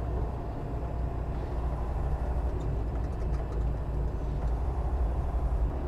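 Semi truck driving, a steady low rumble of engine and road noise.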